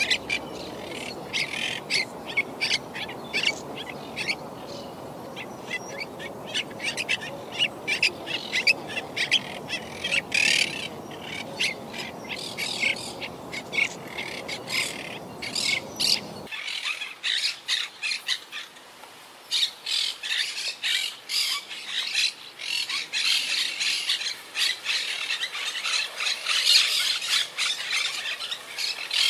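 A flock of monk parakeets (Quaker parakeets) calling: many short calls in quick succession, packed closer together and louder in the second half. For about the first half a low, steady background noise runs under the calls and then cuts off suddenly.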